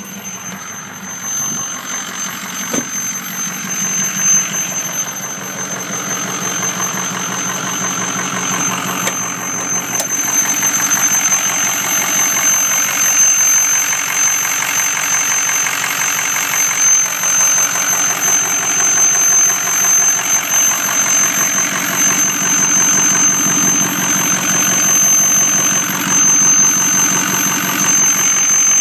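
Ford Powerstroke diesel running with an Industrial Injection hybrid turbo, a steady high-pitched turbo whistle held over the engine sound. It gets louder about ten seconds in.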